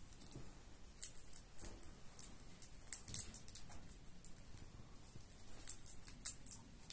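A parrot cracking seed shells with its beak: irregular small, sharp cracks and crunches, in clusters with short pauses between.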